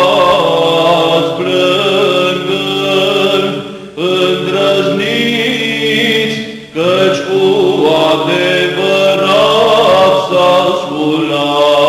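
Romanian Orthodox Byzantine chant in the fourth tone: a long wordless melismatic phrase sung over a steady held drone (ison). The line breaks briefly about four seconds in and again near seven seconds in.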